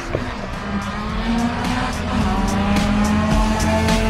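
Drag-racing car accelerating down the strip, its engine pitch rising, with background music and a steady beat.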